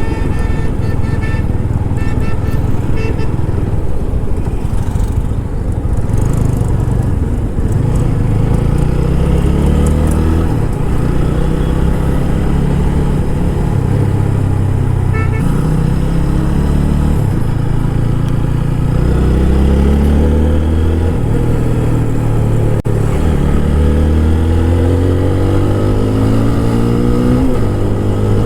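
TVS Apache RTR 160 4V's single-cylinder four-valve engine pulling under load on the move. Its pitch climbs again and again and drops back at each gear change, most clearly through the second half.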